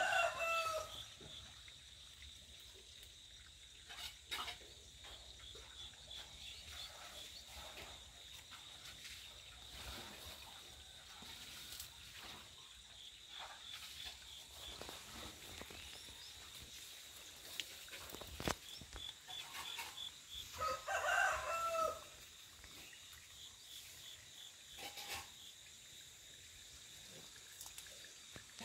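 A rooster crowing twice, once at the very start and again about 21 seconds in, over a steady high-pitched insect trill.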